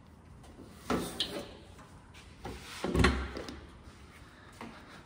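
Rear engine door of a New Holland 328 skid loader being unlatched and opened by hand: a metal knock about a second in, then a louder clunk and rattle about three seconds in.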